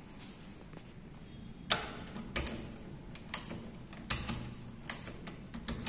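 Key turning in the lock on an aluminium sliding wardrobe door's handle: a series of sharp clicks and knocks, about six in all, starting nearly two seconds in.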